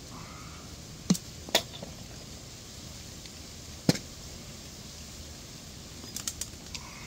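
Sharp clicks and knocks of hand tools and light-fixture hardware being handled: two knocks about a second in, half a second apart, another just before four seconds, then a quick run of lighter ticks near the end, over a quiet outdoor background.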